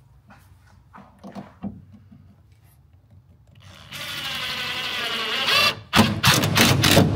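Cordless drill-driver driving a wood screw into an OSB platform: a few faint taps, then the motor whines steadily for about two seconds, followed by a quick run of loud, sharp clacks as the screw seats flush.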